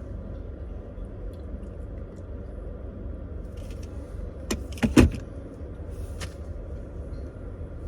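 Steady low road rumble inside a moving car's cabin, with two sharp clicks or knocks about four and a half and five seconds in.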